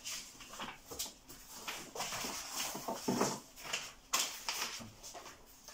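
Sheets of paper rustling as they are handled, with a sudden louder crackle about four seconds in.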